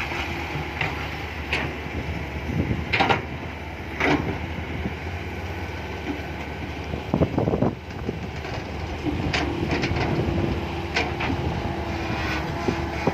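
Diesel engines of a Komatsu PC120-5 excavator and a six-wheel dump truck running steadily, with several sharp knocks spread through, and a steady tone in the last few seconds.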